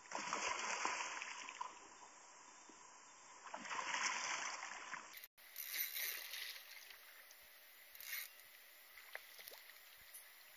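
Water splashing and sloshing beside a kayak: two louder bursts, one at the very start lasting about a second and a half and another around four seconds in, then fainter small splashes.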